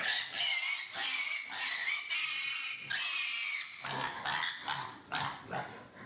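An animal squealing in long, high-pitched cries for about four seconds, then in shorter, broken cries.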